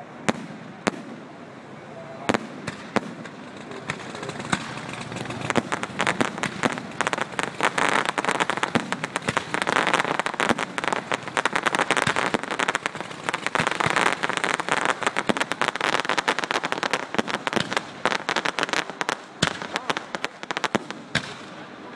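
Aerial fireworks display: a few scattered bangs, then from about six seconds in a dense barrage of rapid bangs and crackling that keeps up until shortly before the end.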